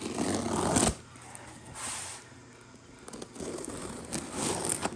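A cardboard box being cut open with a knapped stone flake: the tape and cardboard scrape, crinkle and tear in several noisy bursts, the loudest in the first second.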